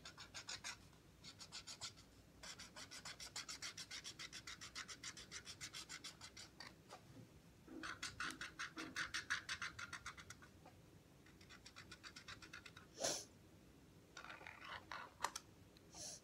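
Marker drawing on a cardboard toilet-paper roll in rapid back-and-forth strokes, about seven a second, in several runs with short pauses between. There is a single sharp tap about thirteen seconds in.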